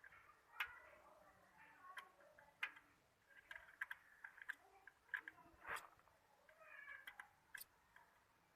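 Near silence with a few faint, scattered clicks and light metallic taps, as of a spanner working loose the muffler bolt on a Bajaj Pulsar 220 exhaust.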